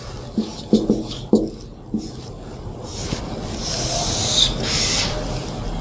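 Dry-erase marker drawing on a whiteboard: a few short squeaks and taps in the first two seconds, then longer hissing rubbing strokes from about three seconds in.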